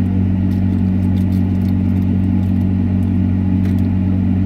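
A steady low hum with scattered light clicks and taps over it.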